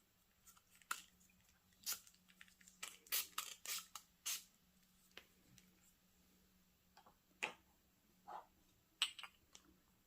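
Ink being spattered onto paper: a faint, irregular scatter of small sharp taps and flicks, bunched together in the first half and again near the end.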